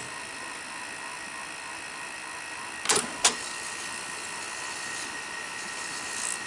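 Sony SL-5000 Betamax deck's mechanism running with a steady whir, with two sharp clicks about three seconds in. The owner takes it that the capstan is working and the reel drive is at fault.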